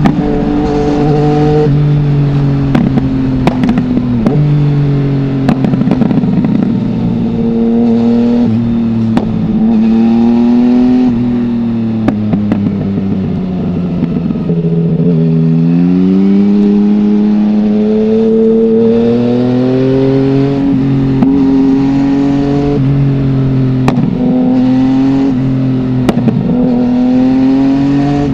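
2020 Yamaha MT-09's 847 cc inline-three engine through an Akrapovic full-system exhaust with no dB killer, heard from the rider's helmet as it runs under load. The engine note rises and falls over and over, with sudden steps in pitch, and a long climb a little past halfway; occasional sharp clicks cut through.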